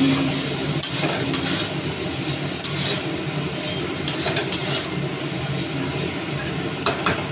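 Steel spatula scraping and knocking against a steel kadai (wok) while turning fried rice, with irregular clinks over a steady background hiss. The rice is being mixed so it doesn't stick to the pan.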